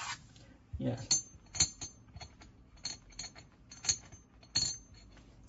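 Small metal parts clinking and clicking as screws and a stainless steel clamping plate are handled, a dozen or so sharp strikes, several with a short metallic ring.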